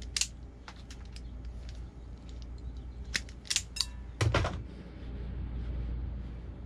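Wire stripper snipping and clicking on thin red hookup wire as the insulation is stripped from the ends: a series of sharp snips, the busiest just before a dull knock a little past four seconds. Under it is a steady low hum.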